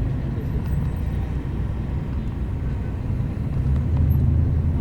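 Bus engine and road noise heard from inside the cabin as the bus travels: a steady low drone whose engine note grows louder near the end.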